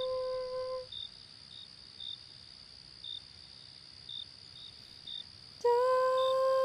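A long held wordless note ends about a second in, leaving the steady high trill of night crickets, with short chirps every half second to a second. Near the end a new hummed note comes in, held and then wavering.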